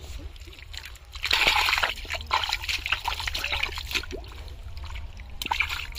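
Hands squelching and sloshing through wet mud and shallow muddy water while digging out a flooded hole, in irregular wet slaps and splashes, loudest about a second in.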